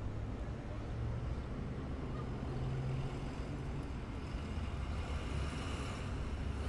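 Steady low rumble of city outdoor ambience, with a fainter even hiss above it.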